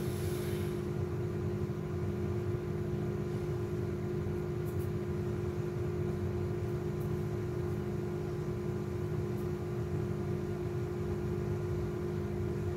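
Steady machine hum with two constant low tones over a low rumble, unchanging throughout.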